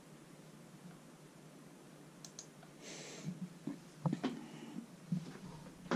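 A few sharp clicks and light knocks scattered through the second half, with a short hiss about three seconds in; the knocks come as a handheld camera is picked up and moved over a computer desk.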